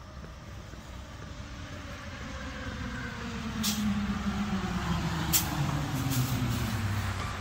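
A motor vehicle's engine drawing nearer, its pitch falling steadily as it grows louder, with a few short sharp hisses about halfway through.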